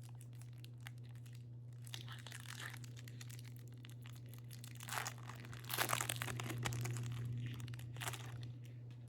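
A baseball card pack's foil wrapper being torn open and crinkled, with the loudest crinkling and tearing in the middle of the stretch.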